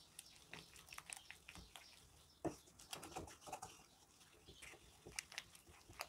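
Faint, irregular soft squelches and light taps of a wooden dal masher mashing boiled masoor dal against the sides of a metal karahi.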